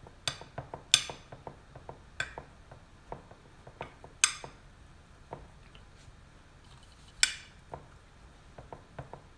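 A kitchen utensil tapping and clinking against a baking dish while sushi rice is spread into it. Soft taps come throughout, with about five sharp, ringing clinks among them.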